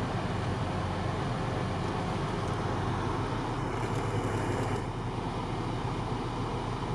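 Off-road vehicle engine running steadily while driving, heard from inside the cabin as a constant low rumble that dips slightly about five seconds in.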